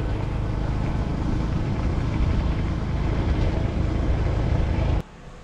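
Motorcycle running steadily as it rides along, heard from the rider's seat. It cuts off abruptly about five seconds in.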